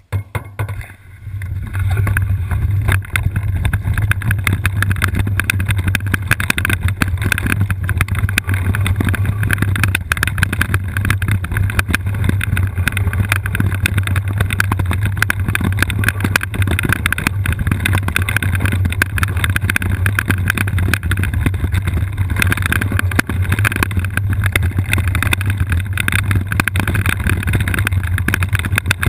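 All-terrain wheelchair rolling down a rough trail: a steady rumble with dense, continuous rattling and knocking of the frame over the ground, building up about a second in.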